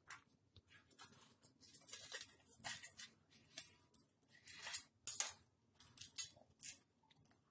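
Knife and fingers scraping and peeling the charred skin off a fire-roasted brinjal on a steel plate: a string of faint, short, irregular scrapes.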